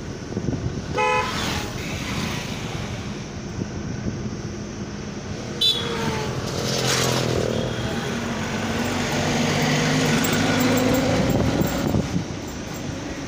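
Road and wind noise from a moving car, with a short vehicle horn toot about a second in and another brief toot near the middle. An engine's drone grows louder over the second half as traffic goes by.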